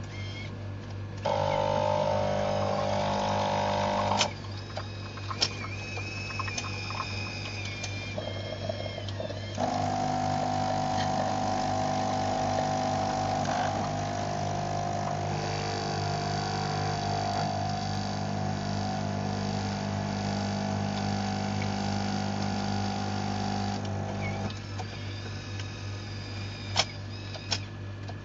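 Espresso machine switching on and running: a steady machine buzz starts about a second in and stops after about three seconds, followed by a few sharp clicks and a thin high tone. A second, longer steady buzz then runs for about fourteen seconds before cutting off, with a low hum underneath throughout and a couple of clicks near the end.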